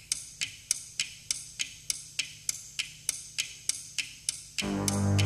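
Clock ticking steadily, about three sharp ticks a second. Near the end, instrumental music with low held chords comes in under the ticking.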